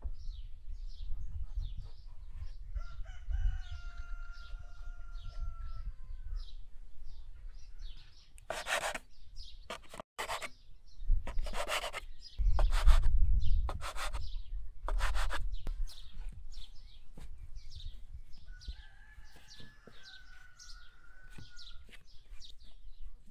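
A rooster crowing twice, each a held call a few seconds long that drops slightly at the end, with small birds chirping throughout. Between the crows come several short, loud, rough scraping noises.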